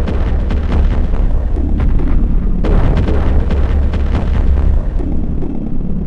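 Dark, heavy demo soundtrack music with a deep distorted bass and pounding drum hits. The texture shifts about two and a half seconds in, when a brighter layer comes back in, and thins again about five seconds in.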